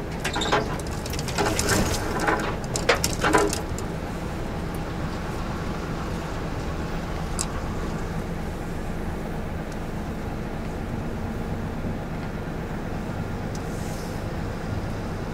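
Hino Profia truck's diesel engine running steadily under load as the truck climbs a narrow mountain road, heard from inside the cab. A burst of sharp crackles and scrapes comes in the first three or four seconds, then a single click about halfway.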